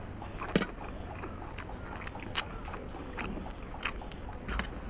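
Close-up mouth sounds of eating Maggi instant noodles: slurping a forkful, then chewing, with many short wet smacks and clicks, the sharpest about half a second in and at the end.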